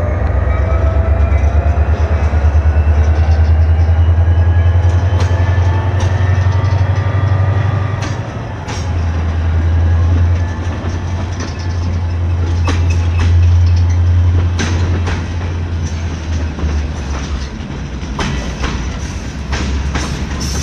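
Freight cars of a slow-moving train rolling past with a steady low rumble. Faint tones rise in pitch over the first several seconds, and scattered clicks and clanks of wheels over the rails come through the second half.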